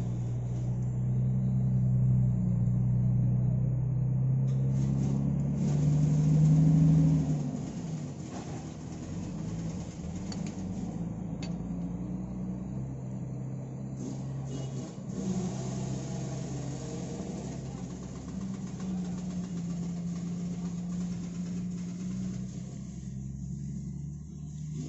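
Hino truck diesel engine running while its inline injection pump is being adjusted. The engine speed rises briefly about six seconds in, then falls back to a steady idle.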